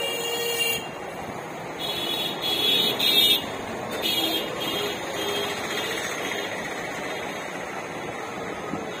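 Street traffic with vehicle horns honking: several short toots in the first few seconds, the loudest about three seconds in, over a steady background hum of traffic.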